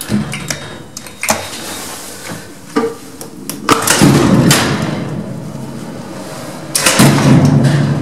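A run of sharp clicks and metal knocks on top of a lift car, followed by heavier rumbling clatters about four seconds in and again about seven seconds in.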